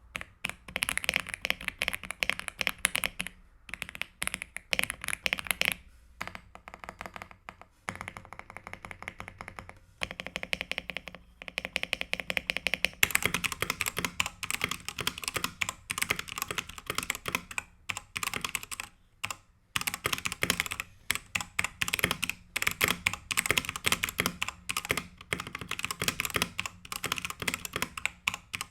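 Fast typing on a budget mechanical keyboard, dense runs of keystrokes broken by short pauses. About thirteen seconds in the keystrokes turn brighter, the sound of a second keyboard being typed on for comparison.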